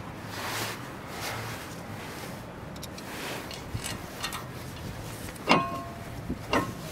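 Light metallic clicks and taps as the small retaining screw is threaded by hand and driven with a screwdriver to hold a brake rotor on the wheel hub. One sharper metal clink with a short ring comes about five and a half seconds in.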